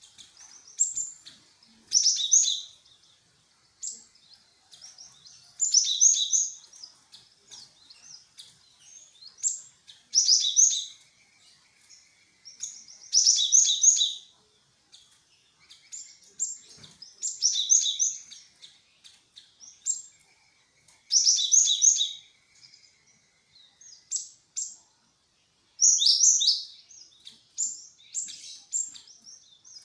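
Glatik wingko (cinereous tit) singing vigorously: short bursts of high, sharp chirping phrases repeated every two to four seconds, with a faint lower trill between some of them. This is the kind of song used as a lure to make kept birds answer.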